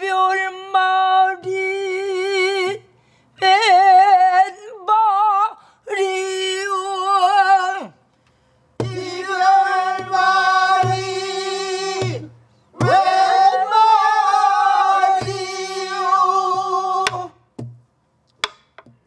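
A woman singing pansori in long, held phrases with wide vibrato, broken by short pauses, while a buk barrel drum is struck now and then with low thumps. The singing stops shortly before the end.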